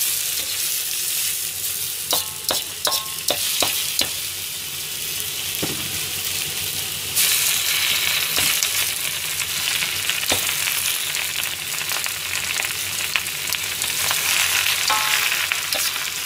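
Bok choy and bean sprouts stir-frying over high heat in an iron wok: a steady sizzle, with a metal ladle knocking and scraping against the pan in a run of quick strokes a couple of seconds in and again near the end. The sizzle grows louder about seven seconds in.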